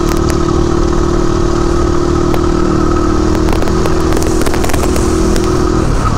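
Motorcycle engine running at a steady speed while riding, with a constant hum under rushing noise and scattered light clicks and rattles.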